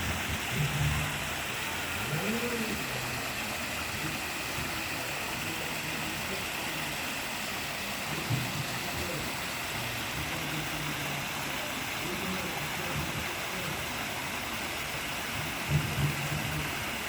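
Steady rushing background noise, with faint low voices breaking in now and then.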